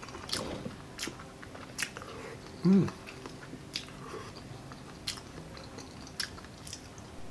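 Close-miked chewing and biting of a mouthful of food, with sharp wet mouth clicks and smacks about once a second. A brief hum of the voice about three seconds in is the loudest sound.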